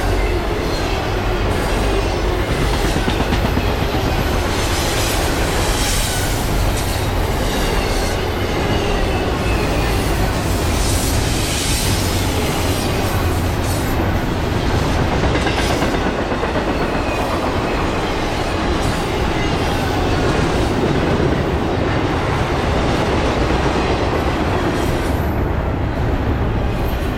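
BNSF intermodal freight train rolling past on a steep grade: a steady loud rumble of wheels on rail with clickety-clack over the joints and a faint high wheel squeal now and then.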